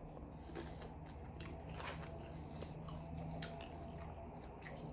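Mouth chewing and crunching fried green bean fries: quiet, irregular crisp crunches.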